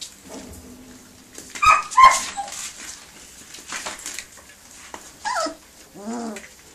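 Young puppies whimpering and yipping while they crowd and eat from a food bowl, with two sharp knocks just under two seconds in as the loudest sounds, a falling whine about five seconds in and a short whimper near the end.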